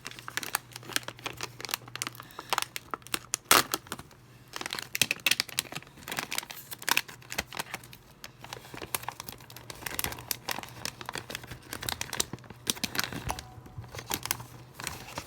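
Plastic snack wrapper crinkling and tearing as a packet of small chocolate biscuits is handled and opened by hand, an irregular crackle coming in bursts.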